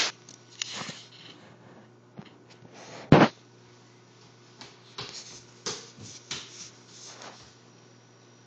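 Scattered light clicks, knocks and rustles of handling and movement in a room, with one loud thump about three seconds in.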